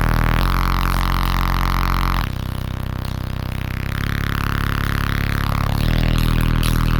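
Bass-heavy music played loud through a car audio system's subwoofers: deep sustained bass notes that shift pitch every second or two.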